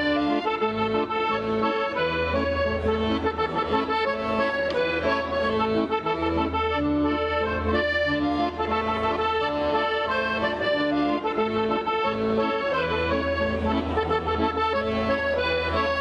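Piano accordion played solo: a quick melody on the right-hand keys over low bass notes and chords from the left-hand buttons that keep alternating.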